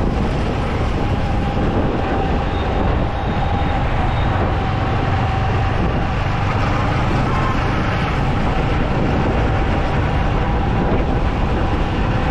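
Steady road noise from a motorcycle on the move: wind on the rider's microphone over the low, even rumble of the engine and tyres.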